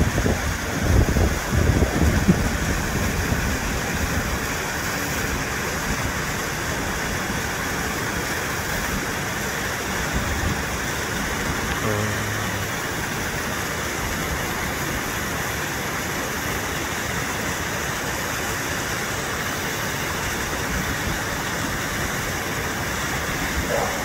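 Waterfall rushing steadily, white water pouring off a rock ledge into a pool below. Wind buffets the microphone in the first couple of seconds.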